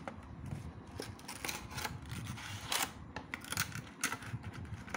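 Cardboard box and clear plastic tray being handled and opened, with irregular clicks and rustles of the packaging.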